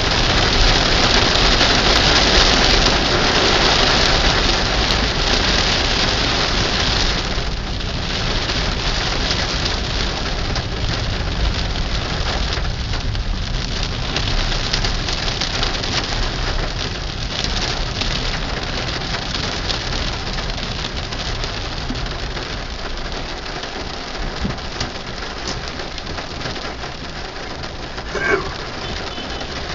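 Heavy rain pelting the car's windshield and roof, heard from inside the car over a low engine hum, growing gradually quieter. A brief pitched sound stands out near the end.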